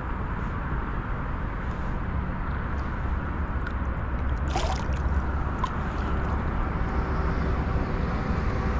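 Water sloshing and gurgling beside a canoe, over a steady low rumble. A short burst of sharp splashy clicks comes about halfway through.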